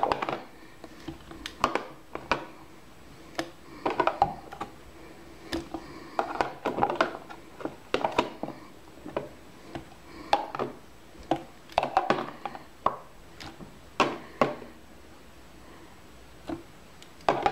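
Zucchini slices being dropped by hand into a crock pot of chicken gravy: a dozen or so irregular knocks and plops, a second or two apart.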